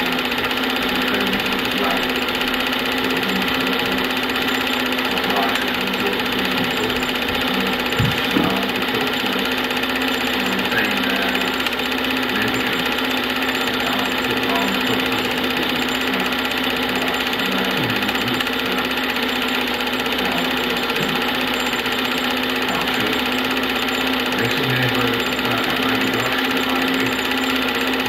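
Film projector running: a steady mechanical whirr over a constant low hum, with one short knock about eight seconds in.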